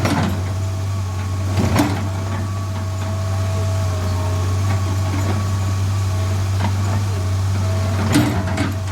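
Heavy machine engine, an excavator's diesel, running at a steady idle, with two sharp knocks about two seconds in and near the end.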